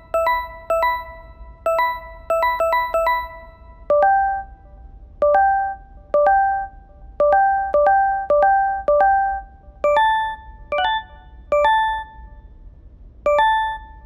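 Clean UI notification chimes: about twenty short, crisp, bell-like tones in an uneven melodic run, each struck and fading quickly. The notes shift to a new pitch set about four seconds in and again about ten seconds in.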